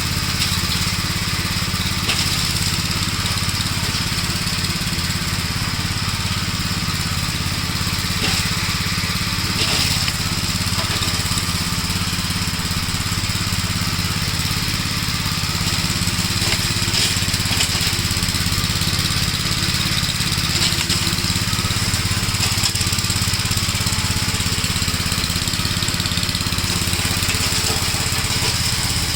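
1956 Gravely Model L walk-behind tractor's single-cylinder engine running steadily at an even speed.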